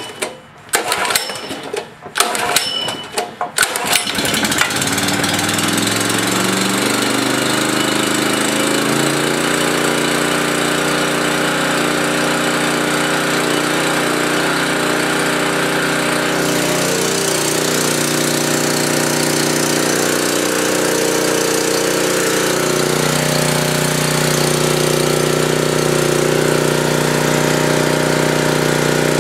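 9 HP Honda GX-series single-cylinder engine on a backup generator cold-started on choke in −4 °F weather: a few cranking strokes, then it catches about four seconds in, picks up speed over the next few seconds and settles into a steady run.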